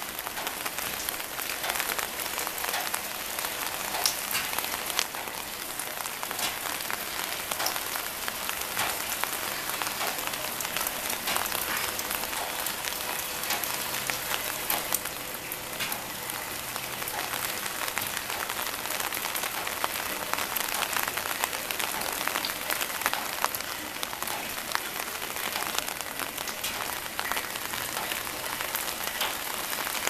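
A steady stream of rainwater pouring off a sheet-metal gutter outlet and splashing through a mesh screen into a plastic rainwater tank: a continuous splashing hiss scattered with small drip and splash ticks.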